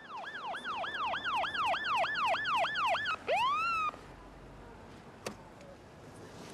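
Police car siren sounding in fast rising-and-falling sweeps, about three a second, then one slower rising sweep that cuts off suddenly about four seconds in. A single sharp click follows later.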